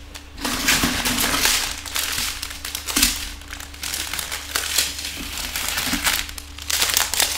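Strips of small plastic bags of diamond-painting drills crinkling and rustling irregularly as they are handled and moved.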